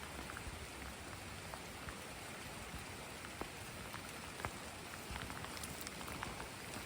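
Steady, prolonged rain falling, an even hiss with scattered sharp drops tapping throughout.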